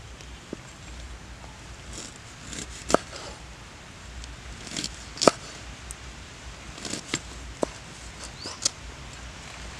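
A knife slicing limes on a wooden cutting board: irregular sharp knocks as the blade cuts through and strikes the board. The loudest comes about halfway through.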